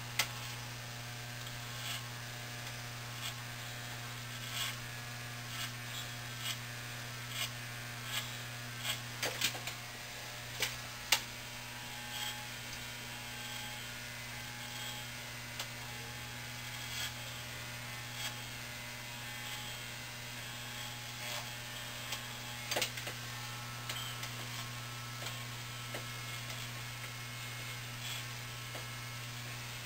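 Corded electric hair clippers running with a steady low hum as they cut short hair, with faint scattered clicks.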